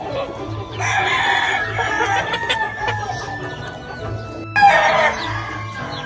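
Gamefowl rooster crowing: one long crow starting about a second in, then a shorter loud call near the end, over background music with a steady beat.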